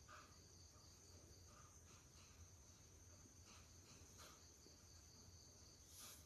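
Near silence, with faint steady high-pitched insect chirping and a few soft clicks.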